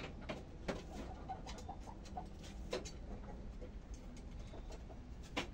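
Chickens making soft low clucks as they settle on the roost, with a few sharp taps in between; the loudest tap comes near the end.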